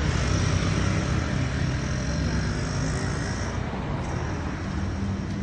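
Steady road-traffic noise with a low engine rumble, with a faint high whine in the first few seconds.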